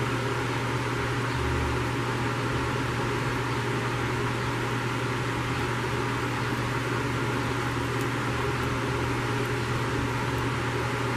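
Hot-air rework station blowing steadily at 380 degrees: an even fan hiss with a constant low hum, melting the solder of a phone's charging port to remove it.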